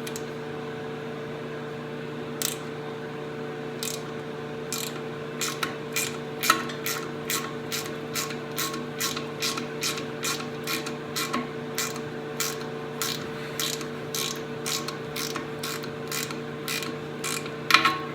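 Ratchet wrench clicking on the return strokes at about two clicks a second as a nut welded onto a broken, rusted bolt is backed out, the bolt turning free. A steady low hum runs underneath.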